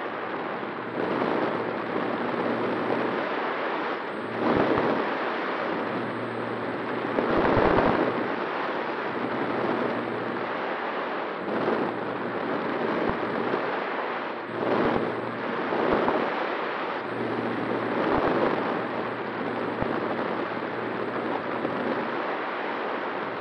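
Wind rushing over the onboard camera microphone of an FPV flying wing in flight, swelling into loud buffeting gusts every few seconds, the strongest about seven to eight seconds in. A faint steady hum from the plane's motor and propeller runs underneath.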